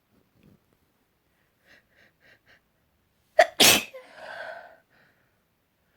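A woman's sneeze building up: four quick, catching breaths, then one loud sneeze about three and a half seconds in, trailing off in a short voiced sound.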